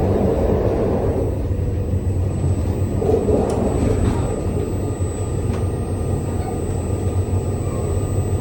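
Interior running noise of a JR Shikoku 2700 series diesel train: a steady low rumble from the engine and wheels on the rails, with a few faint clicks about halfway through.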